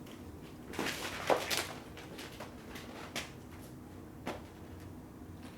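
A few scattered knocks and clicks of small objects being handled, over a faint steady low hum.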